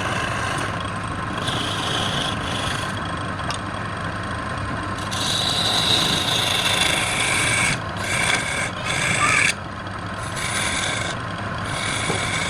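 Wood being worked on a running wood lathe: a continuous scraping rasp of tool or abrasive on the spinning wood. It shifts in tone every second or two as the pressure and position change, with short breaks near the middle.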